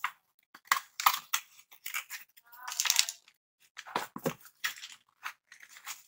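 White paperboard retail box being opened and handled by hand: irregular scrapes, clicks and rustles of the cardboard flaps. There is a longer rustle about three seconds in and a couple of duller knocks a second later.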